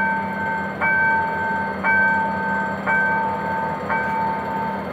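Level crossing warning bell striking about once a second, each strike ringing on, over the steady running of a GM GT-22 CW-2 diesel locomotive pulling a passenger train towards the crossing.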